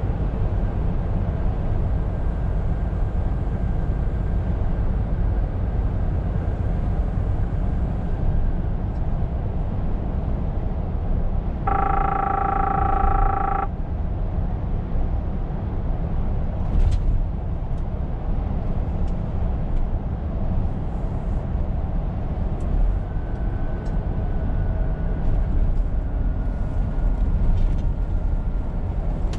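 Scania R520 truck being driven, a steady low rumble of engine and road noise. About twelve seconds in, a steady beep-like tone with several overtones sounds for about two seconds.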